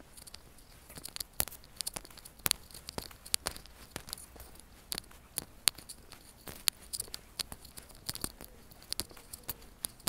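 Irregular sharp clicks and crackles close to the microphone of a handheld phone carried while walking: handling noise, with no steady sound behind it.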